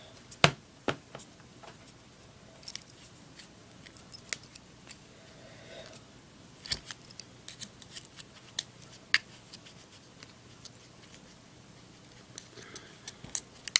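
Scattered small metallic clicks and taps as a lighter's metal insert and a small hand tool are handled while rayon balls are packed into it. The loudest single click comes about half a second in, with clusters of quicker taps in the middle and near the end.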